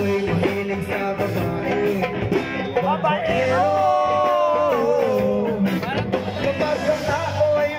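Live band playing loudly with drums and electric guitar, a singer holding a long, wavering note through the middle.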